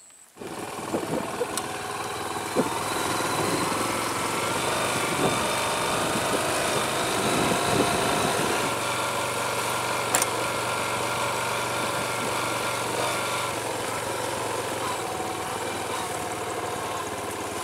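A small vehicle engine running steadily under way, coming in suddenly about half a second in.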